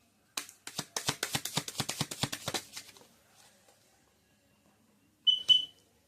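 Tarot cards being shuffled by hand: a quick run of papery card flicks for about two and a half seconds. Near the end come two sharp taps close together, with a brief high ring.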